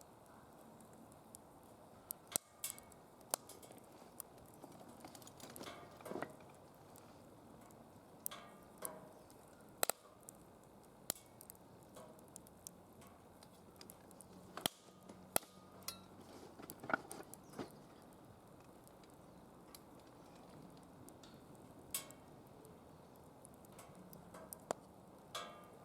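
Firewood burning in a DOD Mecha Moe Fire fire pit, crackling with irregular sharp snaps and pops over a low, steady background.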